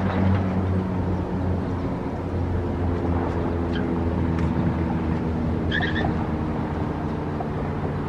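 Road traffic passing: a pickup towing a trailer, a motorcycle and a car go by, their engines a low hum with slowly shifting pitch. A few short high bird chirps, the clearest about six seconds in.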